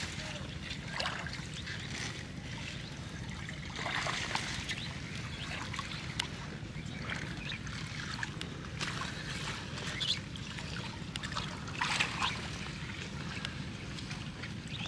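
Water trickling and splashing in irregular bursts as a wet fishing net is hauled up out of the river, loudest about four and twelve seconds in, over a steady low rumble.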